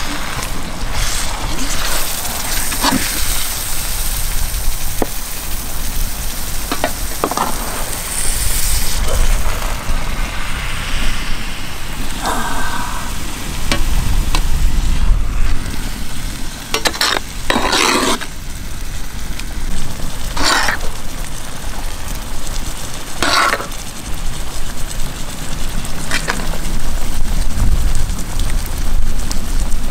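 Whole beef leg frying in a wide pan of thick pepper gravy, with a metal ladle stirring and scraping the pan. A few short, louder scrapes come in the second half.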